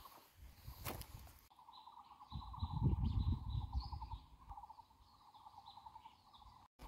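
Woodland wildlife calling: a rapid, continuous trill and small high chirps, with a low rumble swelling in the middle.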